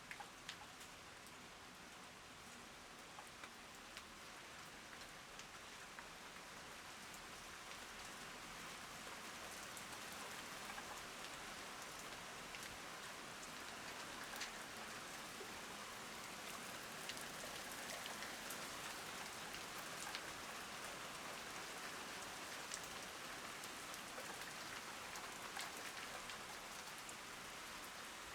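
Steady rain falling, with many single drops tapping distinctly through the hiss. It grows gradually louder over the first ten seconds or so, then holds steady.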